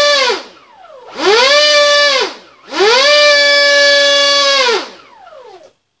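Brushless electric motor of a Multiplex EasyStar RC plane run in throttle bursts up to full power. It gives a high, steady whine that winds down with falling pitch three times and spins back up twice, then stops near the end.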